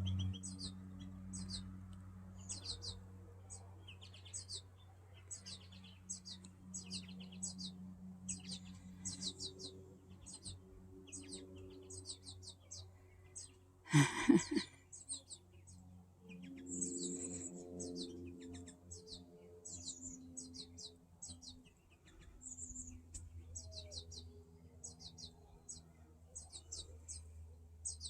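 Fledgling American goldfinch giving its begging calls: short, high call notes repeated about once or twice a second, the young bird asking its parent to feed it. About halfway through there is one loud knock, and a low hum runs underneath.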